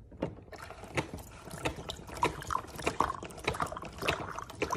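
Water moving in small, irregular splashes and drips, many light splashes a second.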